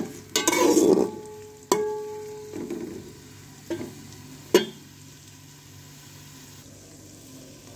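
A slotted steel spoon scrapes and clinks against an aluminium pot while stirring chopped onions frying in ghee. There are several sharp metallic clinks with a brief ring in the first half. After that only a steady, quieter sizzle of the onions in the hot ghee remains.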